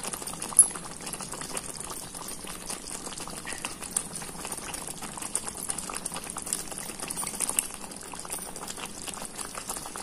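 Creamy butter chicken gravy simmering in a pan, bubbling steadily with many small irregular pops and spits. One sharper tick sounds about half a second in.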